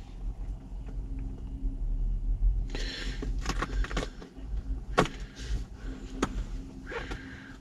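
Scattered clicks, knocks and short rustles from hands working at the base of a VW T4's handbrake lever, metal and plastic parts knocking together, the sharpest click about five seconds in. A steady low hum runs underneath.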